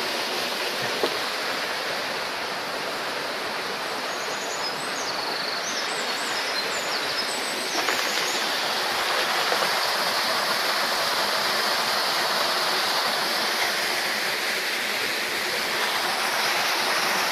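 Small waterfall and mountain stream rushing steadily over rocks.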